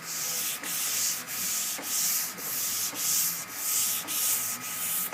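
Sandpaper on a Curvecaster curved sanding board rubbing back and forth across a primed, guide-coated car body panel, about two strokes a second, stopping near the end. This is block sanding that cuts down the high spots while the low area slowly disappears.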